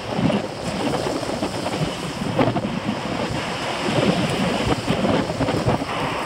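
Wind buffeting a moving microphone: a loud, gusty rumble with uneven bumps.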